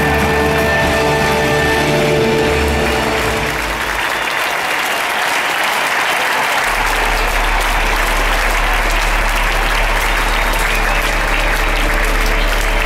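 A large stadium crowd applauding over orchestral music. The music's held chords fade about four seconds in, leaving mostly applause, and a deep steady bass note comes in a couple of seconds later.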